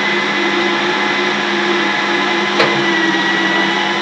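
Steady drone of the boat's running inboard engines heard in the engine compartment. A single sharp click comes about two and a half seconds in as a start of the Kohler marine generator is tried. The generator does not run, and the owner suspects it is hydrolocked with water.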